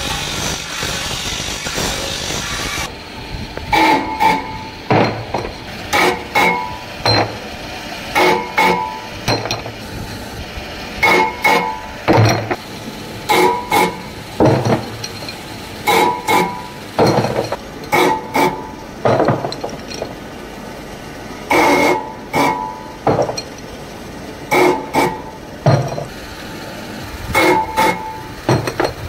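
Motorcycle brake shoes being worked one at a time on a belt-driven spindle machine. Each shoe pressed to the spinning spindle gives a short, loud scraping screech with a ringing tone, repeated about once a second in small groups. A steady hiss comes before the first one.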